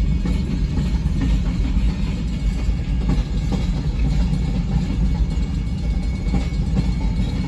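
Freight cars of a mixed freight train (boxcars and covered hoppers) rolling across a grade crossing: a steady low rumble with scattered wheel clicks, heard from inside a car's cabin.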